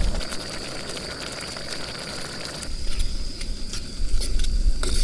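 Dry rice poured from a paper bag into a pot of simmering water, then stirred with a spoon, giving scattered light clicks and a hiss. Under it is a low rumble that fades soon after the start and comes back about four seconds in.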